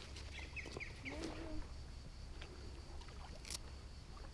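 Quiet water movement around an inflatable float tube, with a short splash about three and a half seconds in as a hooked wels catfish thrashes at the surface beside it.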